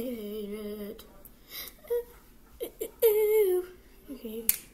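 A girl's voice humming without words in wavering, held notes: a low note held for about the first second, then a louder falling note about three seconds in. A sharp click sounds near the end.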